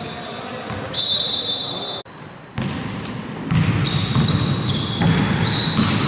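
Indoor basketball game: ball bouncing on the court, with players' voices. A high steady tone lasts about a second, about a second in, and short high squeaks of sneakers on the court come thick from about halfway.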